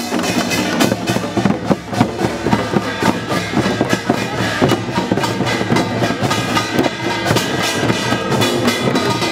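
Traditional Korean street-parade percussion band playing: fast, dense drum strokes with ringing metallic tones over them.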